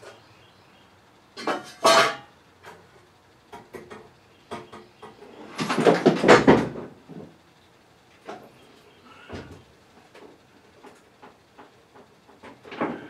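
Hard objects being handled and set down: scattered clicks and knocks, with two louder clatters, one about two seconds in and a longer one about six seconds in.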